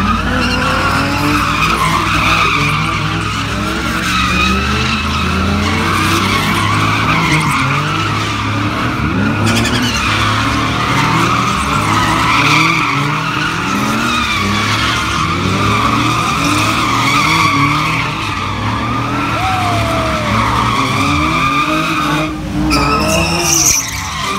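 Two Nissan 350Zs doing donuts, their tyres squealing without a break while the engines rev up and down over and over.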